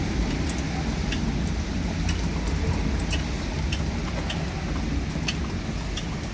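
Rain falling, with irregular drops ticking sharply on a hard surface, over a low steady rumble of thunder.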